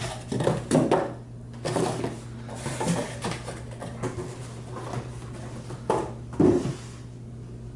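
Cardboard boxes being handled: flaps rustling and scraping, and cardboard knocking, in a string of separate knocks, the loudest about six and a half seconds in.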